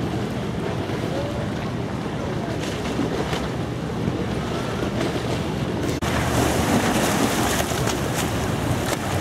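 Boat engine running with a steady low hum over water and wind noise on the microphone. About six seconds in the sound changes abruptly and becomes louder and brighter.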